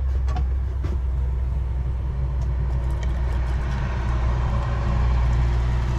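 A motor vehicle engine running steadily with a deep low rumble, with a few light clicks about a second in and a wash of traffic-like noise swelling in the middle.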